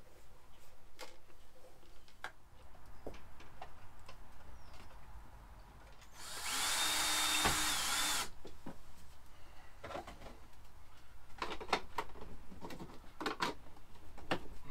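Cordless DeWalt drill run once for about two seconds, about six seconds in, its motor pitch rising and then holding. Light clicks and knocks of handling come before and after it.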